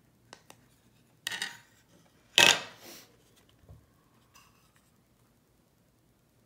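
Hard plastic and metal clicking and clattering as the opened radar detector housing, its cover and a screwdriver are handled and set on a wooden table: a few light clicks, a clatter just over a second in, and a louder knock about two and a half seconds in.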